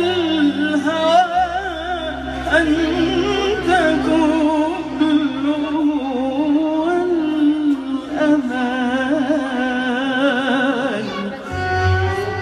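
A woman singing an Arabic song into a microphone, with ornamented, wavering runs and vibrato in the melody, over steady, sustained low instrumental backing.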